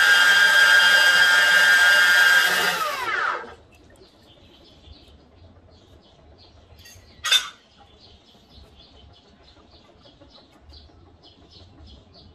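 Water-cooled 235 mm stainless-steel cut-off saw with a 1500 W motor running with a steady high whine as it cuts a stainless strip, then switched off about three seconds in, its pitch falling as the disc spins down. Later there is one brief sharp sound, and faint short chirps repeat about three times a second.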